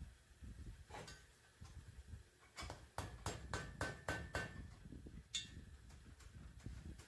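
A quick run of about eight light metallic clicks and taps, a few with a short ring, as a tubular valve stem seal installer and seals are worked onto the valve guides of an aluminium cylinder head. One more sharp tap comes about five seconds in.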